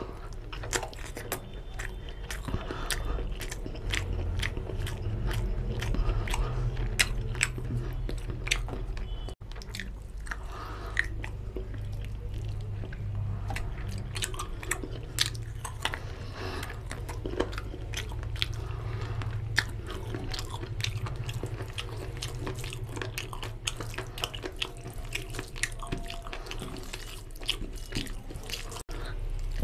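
Close-miked eating of chicken curry and rice: wet chewing and lip-smacking with many sharp mouth clicks.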